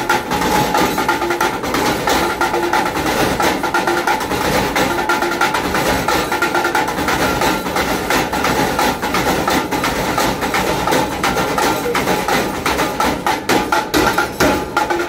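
Steel spoon drumming fast on the stainless steel pans of a sweet corn counter: a continuous, rhythmic metallic tapping and clatter, with music alongside.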